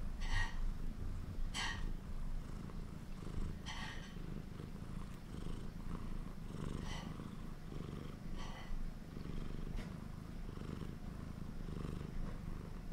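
Cream British shorthair kitten making hunting sounds: about five short, high calls spaced one to three seconds apart, fading after the first few, over a low steady rumble.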